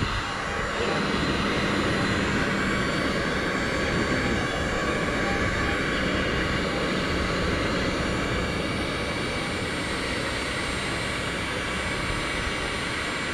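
Heat gun running steadily, its fan blowing hot air with a constant whooshing hum as it melts a plastic plug into a hole in a kayak hull.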